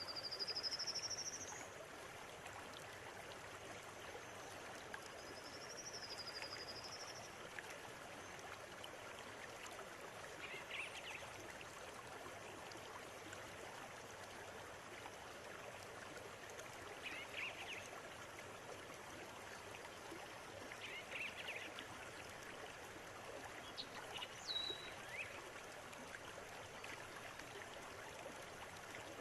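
River water flowing steadily. A bird gives a rising whistle at the start and another curving whistle about six seconds in, with a few short chirps later.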